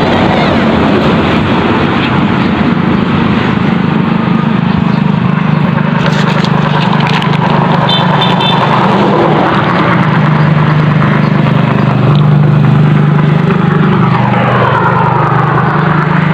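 A motor-vehicle engine running steadily and loudly, with a few short high chirps about eight seconds in.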